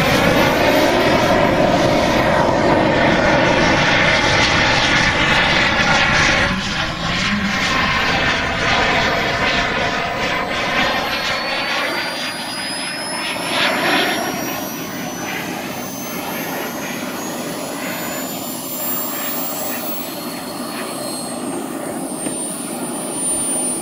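Jet engine of a giant-scale radio-controlled Tornado model jet flying a display pass. It is loudest in the first six seconds, then drops back a little as the jet draws away. From about halfway a high thin whine climbs steadily in pitch.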